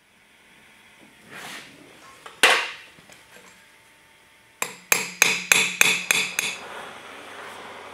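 Hand hammer striking on an anvil, peening over the rivet that joins a snuffer's conical cup to its steel handle: about seven quick ringing metal blows, three or four a second, after a single louder clank earlier on. A steady hiss, like a torch flame, follows near the end.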